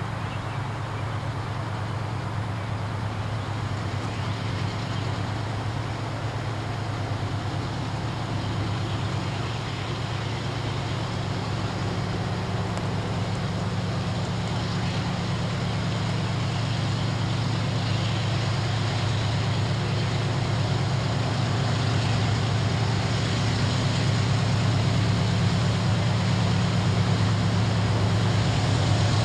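Diesel locomotive engines of an approaching freight train, heard from a distance as a steady low drone that slowly grows louder.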